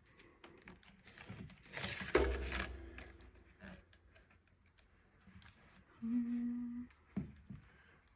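Reed rubbing and clicking against the basket's ribs as rows are woven and packed, with a short rustle and thump about two seconds in. A short low hum sounds about six seconds in.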